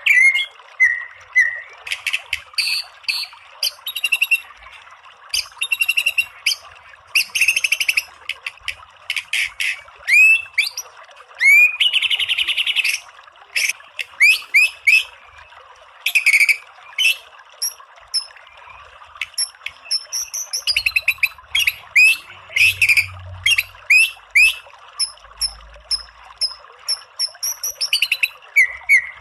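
White-rumped shama (murai batu) singing a fast, varied song in short phrases with brief gaps. It mixes rapid strings of sharp notes, upward-sweeping whistles and a buzzy trill, over a faint steady hiss.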